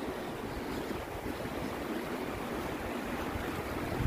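Shallow mountain river rushing over rocks: a steady, even rush of water.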